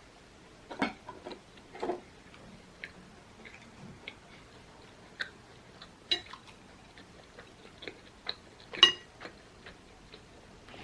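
Close-up eating sounds of a person chewing a soft purple sweet potato ball: small wet mouth clicks and smacks, with a few sharper clicks, the loudest about nine seconds in with a brief ringing.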